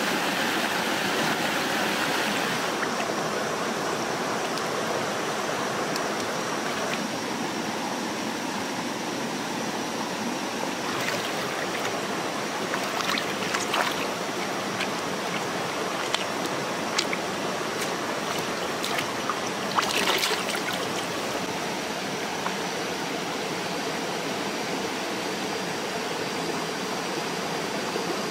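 Rushing stream water flowing over rocks, a steady noise of white water. From about eleven seconds in, a scattering of short splashes as lettuce is swished and rinsed by hand in the current.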